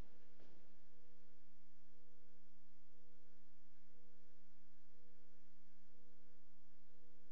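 Steady electrical hum on the lecture-hall recording, with a faint higher tone pulsing on and off about once a second. Two faint clicks come right at the start.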